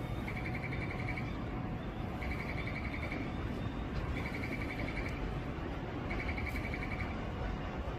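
A short, high electronic trill repeating about every two seconds, each trill about a second long and always at the same pitch, over a steady low background rumble.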